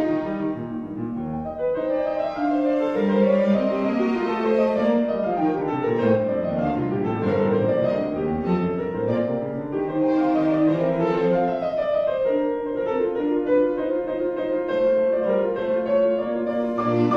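Background classical music: piano with bowed strings, sustained notes in slowly moving melodic lines.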